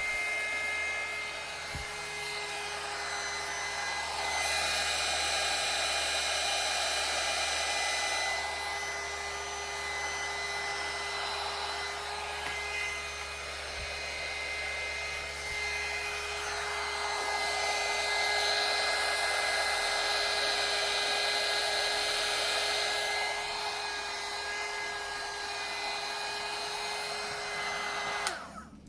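Handheld electric hot-air blower running steadily with a constant whine over rushing air. It swells louder twice, then switches off suddenly near the end.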